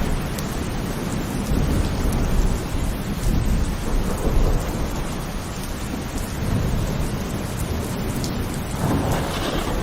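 Heavy rain falling steadily, with a deep low rumble underneath and a brief swell in the downpour about nine seconds in.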